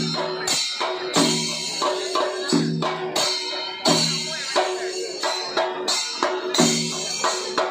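Percussion music with drums and jingling cymbals or tambourine, playing a steady beat with a strong stroke about every two-thirds of a second and a pitched note sounding on every other stroke.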